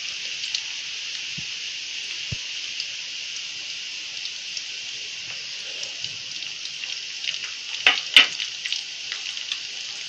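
Garlic and mustard and cumin seeds sizzling steadily in hot oil in an aluminium kadhai, with fine crackles throughout. A few sharper crackles and clicks come about eight seconds in, as chopped green chillies are tipped into the pan.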